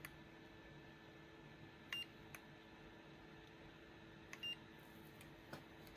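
Two short electronic beeps about two and a half seconds apart, with a couple of faint clicks, over a faint steady hum.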